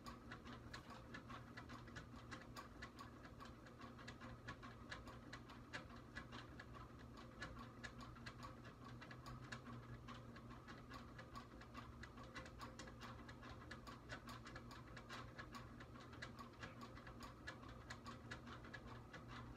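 Near silence: a faint steady room hum with quick, irregular small ticks throughout.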